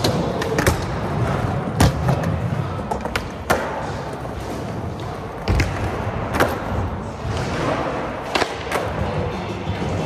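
Skateboard wheels rolling on smooth concrete, with several sharp clacks and thuds as the board strikes and grinds curbs and ledges, over background music.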